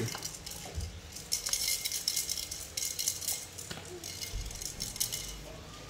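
Small plastic toy kitchen pieces clicking and rattling against each other and a plastic box in quick, irregular clatters.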